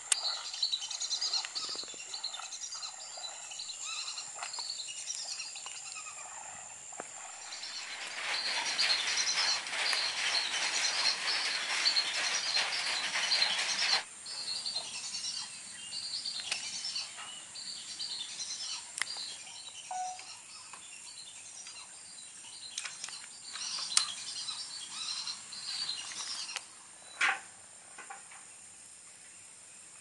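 Birds chirping and calling in a marsh in many quick short notes. In the middle a few seconds of louder rushing hiss start and then cut off abruptly, and a single sharp crack comes near the end.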